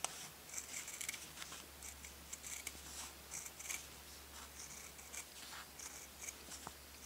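Scissors cutting through stretch satin knit fabric along a paper pattern taped to it: a quiet, uneven run of short snips.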